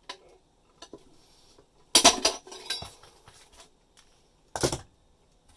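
Metal snips cutting a galvanized light-gauge steel channel through a drywall opening: sharp metallic snaps and clinks, loudest in a cluster about two seconds in, with another loud clank just before the end.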